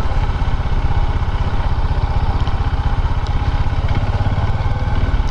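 Motorcycle engine running at steady low revs, with an even beat.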